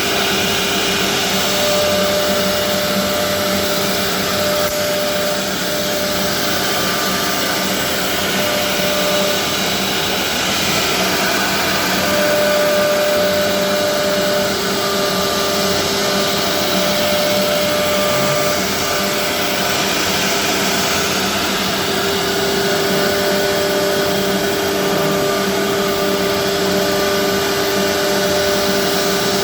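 GXU MD-2500-4 four-head CNC wood router running, a loud, steady whirring with whining spindle tones that drop out and return every few seconds.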